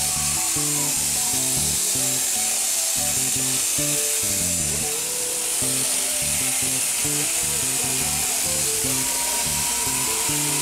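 Electric sheep shears running and cutting through fleece, a steady high buzzing hiss, with music playing underneath.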